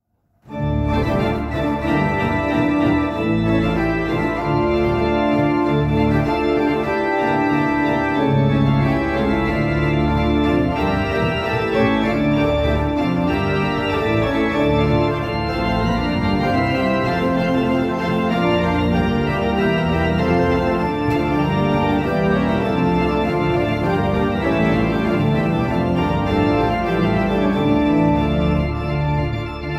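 Pipe organ playing a spontaneous improvisation on a Baroque plenum (full principal chorus with mixtures), with many sustained notes in several voices over a bass line. It starts about half a second in. It sounds fairly direct because the phone recording it hangs on the Rückpositiv case.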